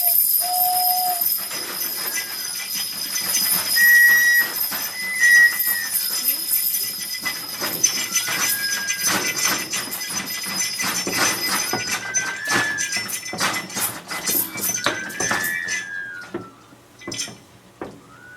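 Hand-made sound effects: a series of short whistle blasts over clattering and rattling objects, with a high steady ringing that stops about twelve seconds in.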